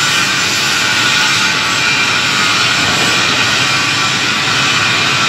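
Loud, steady din of a metal fabrication shop floor in production, with welding and grinding going on: a continuous hissing roar with a few faint steady tones running through it.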